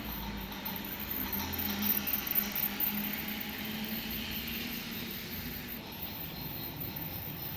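RailKing O-gauge model steam train running on its track: a steady motor hum with wheel and rail noise, louder for a moment about two seconds in.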